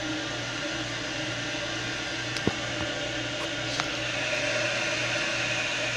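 Glacier Bay toilet tank refilling after a flush: the fill valve runs with a steady hiss of water into the open tank, with a couple of faint clicks. It fills fast.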